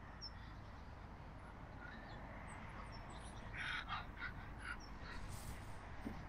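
Faint outdoor background with a few short, harsh bird calls a little past halfway.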